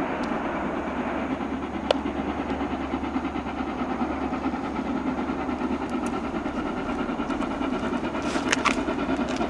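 The 'King Arthur' class steam locomotive 30777 Sir Lamiel approaching while working hard up the gradient, heard as a steady train rumble. There is a sharp click about two seconds in and a few more near the end.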